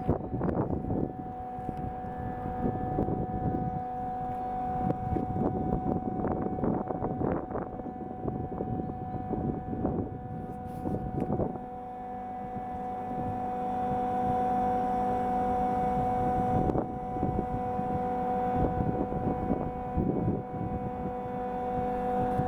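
Climaveneta FOCS-XL chiller compressors running, a steady hum with a high whining note that does not change. Irregular rushing noise swells and fades underneath it.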